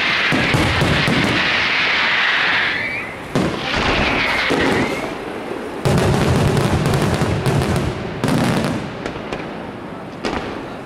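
Aerial firework shells bursting. A dense, high-pitched crackling hiss fills the first few seconds, then sharp bangs come about three, six, eight and ten seconds in, each followed by a low rumbling echo.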